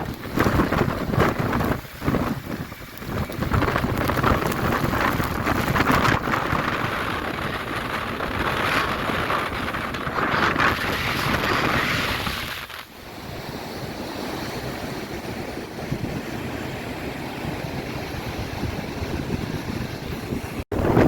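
Strong gusting wind buffeting the microphone over the rush of storm surf. The noise is heaviest at first and settles to a steadier, somewhat quieter blow about two-thirds of the way through.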